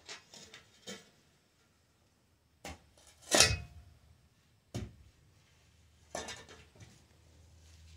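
A series of sharp metallic clanks and clinks a second or two apart, the loudest about three and a half seconds in, as metal objects are handled or dropped.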